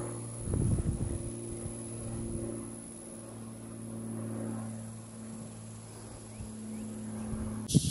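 A steady, low mechanical hum with a few low rumbles in the first second. It cuts off abruptly near the end.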